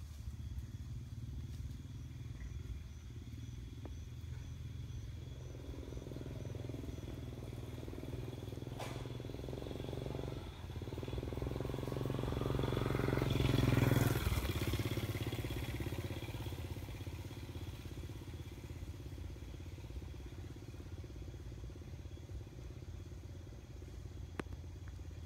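A motor vehicle's engine, over a steady low hum, grows louder, passes about fourteen seconds in, and fades away again.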